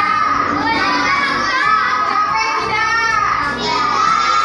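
Music with high children's voices singing, several voices together.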